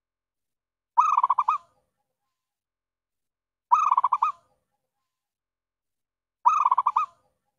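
Zebra dove (perkutut) call: three short phrases of quick stuttering coos, evenly spaced about every two and a half to three seconds with dead silence between. It is a repeated call used to lure wild zebra doves to a trap.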